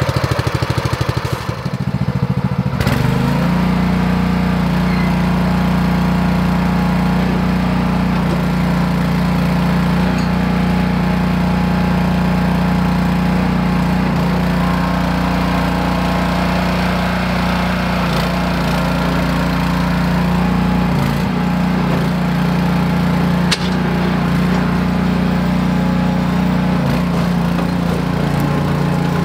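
Tracked mini dumper's 6.5 horsepower petrol engine just after starting, running unevenly at low speed for a few seconds, then speeding up about three seconds in and running steadily. A single click comes near the end.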